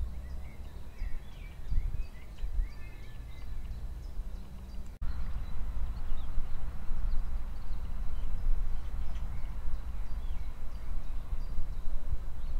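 Small birds chirping and singing over a steady low rumble; the sound breaks off for an instant about five seconds in.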